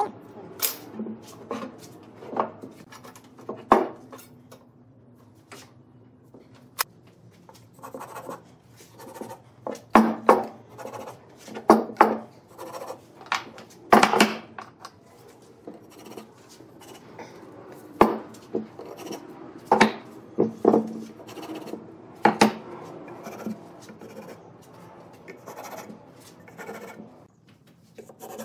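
Thick wooden branch pieces handled on a wooden workbench: irregular sharp knocks as they are set down and shifted, with soft scraping of a pen and ruler on the wood between them.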